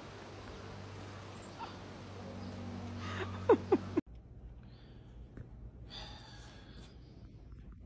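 A dog giving a few short, high whimpers in quick succession about three and a half seconds in, over a steady low hum. After that there is quiet room tone.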